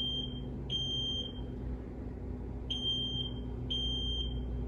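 Smoke alarm sounding its three-beep evacuation pattern: high-pitched beeps about half a second long, one a second, three at a time with a pause of about a second and a half between groups, over a low steady hum.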